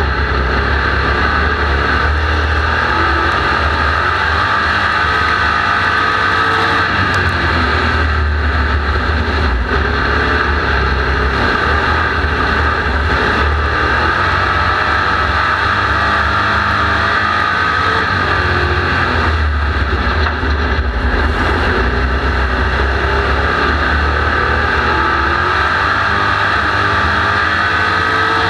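Street stock race car's engine running hard at racing speed on a dirt oval, heard from inside the cockpit as a loud, steady drone with road and wind noise, its pitch shifting only slightly through the corners.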